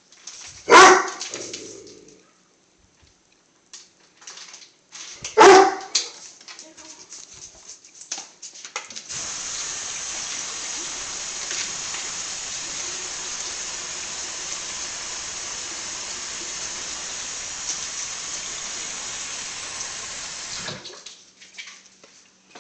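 A dog barks twice, about five seconds apart. Then a steady hiss starts about nine seconds in, goes on for about twelve seconds and cuts off.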